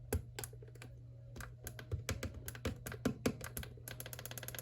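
A series of irregular light clicks that quickens near the end into a fast, even run of about a dozen clicks a second, over a steady low hum.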